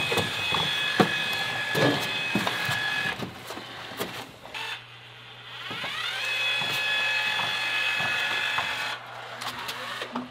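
Cordless caulking gun's electric motor whining steadily as it drives adhesive out of a tube. It stops about three seconds in, then spins up with a rising whine about six seconds in and runs steadily until about nine seconds in. A low hum runs underneath from about three seconds on.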